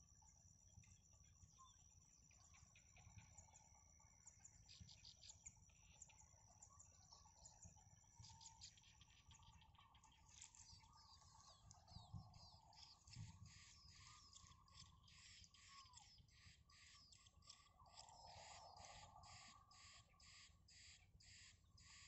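Faint, high nestling begging chirps repeating about twice a second from about ten seconds in, as an adult songbird arrives to feed them. Two soft thumps come near the middle. Before the chirps, a faint steady high insect trill plays and then stops.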